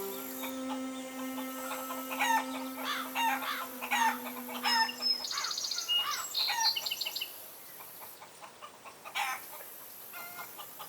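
Chickens clucking in a quick series of short calls, with small birds chirping, over a low held tone that stops about five seconds in.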